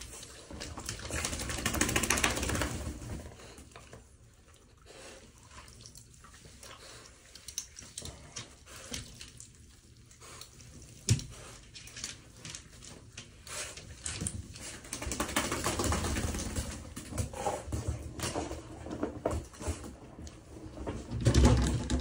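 Water running and splashing in a small bathroom during a shower. It comes in bouts of a few seconds, a longer one in the second half, with quieter stretches and a few sharp knocks between.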